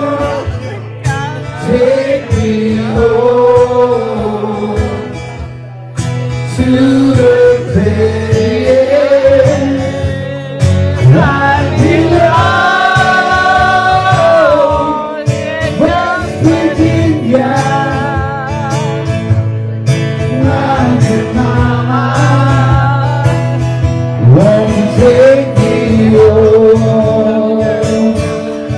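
Country song with a sung vocal line over guitar accompaniment, including a long held note about halfway through.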